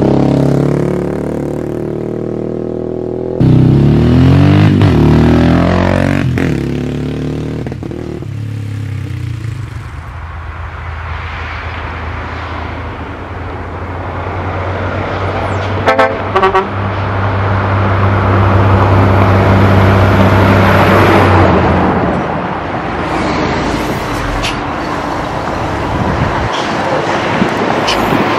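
Motorcycle engine running and revving as it rides past, its pitch rising and falling, with a short horn beep about halfway through.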